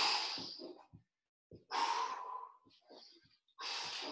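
A man breathing hard while doing mountain climbers, with three forceful exhales about two seconds apart: heavy breathing from exertion.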